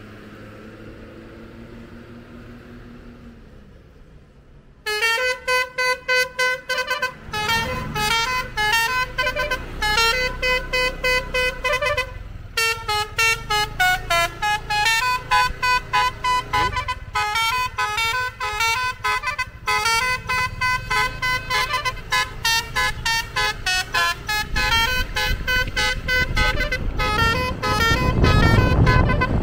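A bus's multi-tone 'telolet' (basuri) horn playing a fast tune of short notes. It starts abruptly about five seconds in and keeps going, with a bus engine's rumble swelling near the end.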